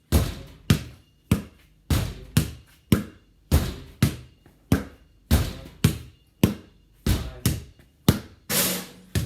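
A basketball struck again and again with a racket handle and rebounding off a garage door: a rally of sharp thuds, roughly two a second, each with a short ringing tail.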